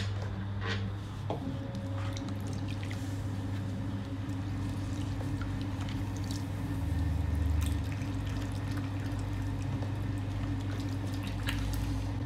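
Electric pottery wheel motor humming steadily while water is splashed onto a spinning ball of wet stoneware clay, with dripping and squelching as hands slide and press on the clay to center it. The low hum swells briefly about seven seconds in.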